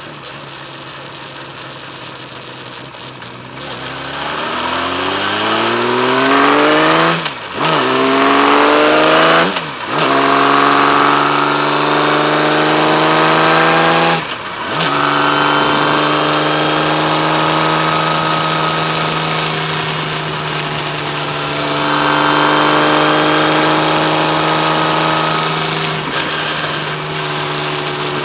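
Kawasaki Z1300's inline-six engine running low at first, then pulling away and accelerating through the gears: the pitch climbs in each gear, with three brief dips at the upshifts. It then settles to a steady cruise with small changes in speed.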